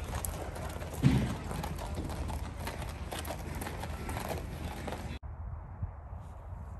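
A racehorse's hooves walking on gravel, a run of crunching steps with one louder thump about a second in. The sound cuts off suddenly about five seconds in and gives way to a fainter, duller steady outdoor noise.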